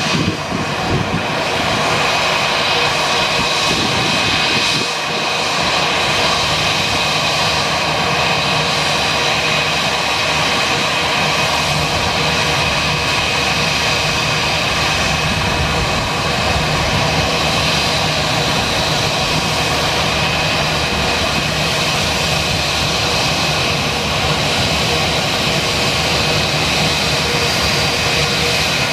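Airbus A320 jet engines running steadily as the airliner taxis close by, with a whine of high, steady tones over the engine noise.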